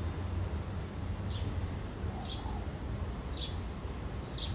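A bird giving short, high, slightly falling chirps about once a second, over a steady low rumble.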